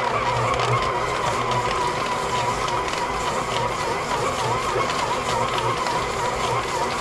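Stand mixer running with a dough hook, kneading sticky bread dough that is still a little too sticky: a steady motor whine with a low hum that pulses about once a second as the hook turns the dough.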